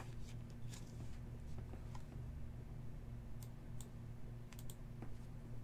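Scattered faint plastic clicks and ticks as a trading card is slid into a rigid plastic top loader and handled, over a low steady hum.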